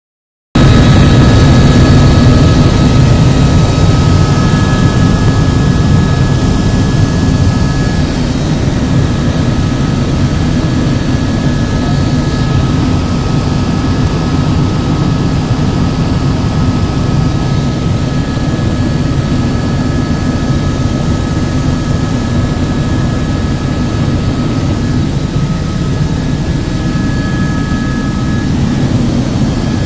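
Helicopter in flight: a steady drone of engine and rotor, with a constant high whine on top, starting abruptly about half a second in.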